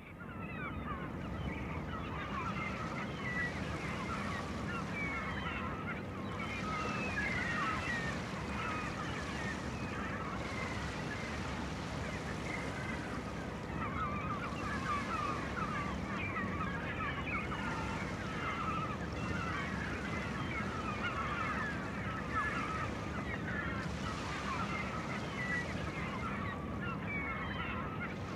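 A flock of birds calling constantly, many short honking calls overlapping, over the steady rush of breaking surf. The sound fades in from silence in the first second.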